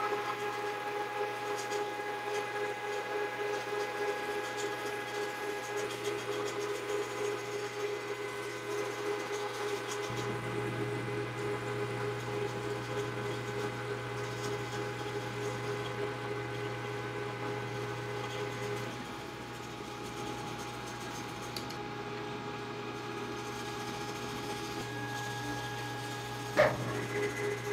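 Metal lathe running, a steady machine hum with several steady tones while it turns a cue ferrule in the chuck. The tones shift partway through, and a single sharp click comes near the end.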